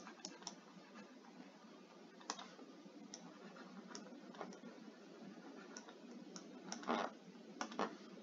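Faint, irregular clicks of a stylus tip tapping on a tablet screen while handwriting, with a few louder taps near the end.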